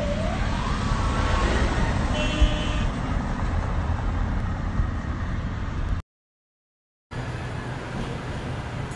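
Street traffic: vehicle engines rumbling, with a short car horn beep about two seconds in. The sound drops out for about a second just after six seconds, then a steady outdoor rumble of traffic and wind resumes.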